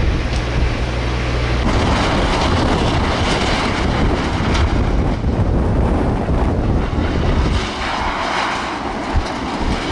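Strong wind blowing across the microphone, a steady rushing noise with a low rumble that drops away near the end.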